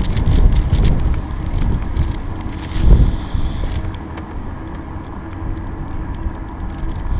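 Wind buffeting a moving action camera's microphone over the rumble of travel along a tarmac path, with light rattles; a strong gust or bump about three seconds in, then steadier and quieter.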